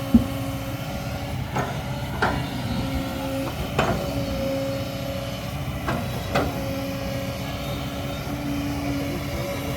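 Kobelco hydraulic excavator working: its diesel engine and hydraulic pump hum steadily, with a droning pitch. Six or so sharp metallic knocks and clanks break in at irregular moments.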